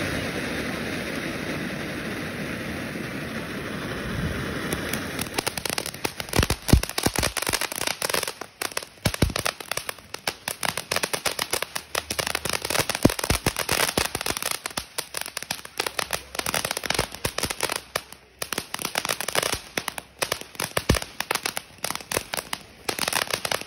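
Spark Plug II ground fountain firework spraying sparks with a steady hiss, then, about five seconds in, breaking into dense, rapid crackling that keeps going.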